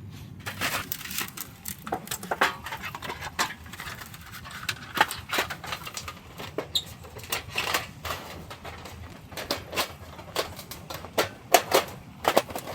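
Irregular clicks and light knocks, several a second, with a few sharper ones near the end.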